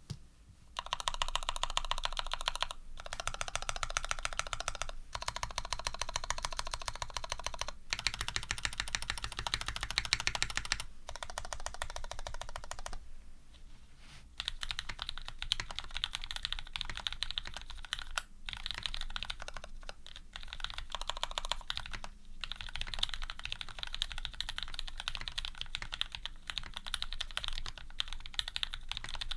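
Custom Serratus mechanical keyboard typed on rapidly: Cherry Retooled Black linear switches, lubed with Krytox 105 on slow-curve 63.5 g springs, in an aluminium plate under GMK keycaps, giving a dense stream of key clacks. The typing starts about a second in and breaks off briefly every few seconds, with a longer lull about halfway.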